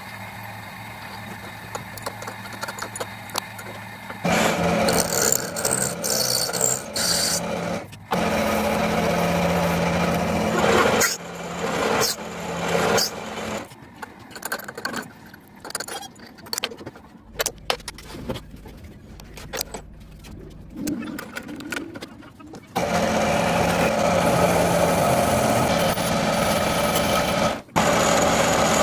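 Metalworking power tools and machines running on steel in a series of short cut-together segments, some steady and droning, others rough and intermittent.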